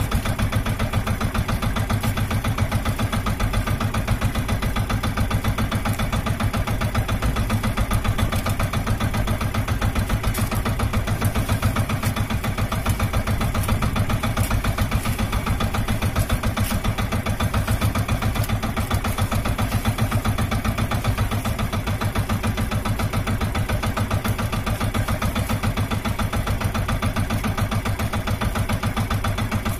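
Outrigger fishing boat's engine idling with a steady, rapid, even pulse.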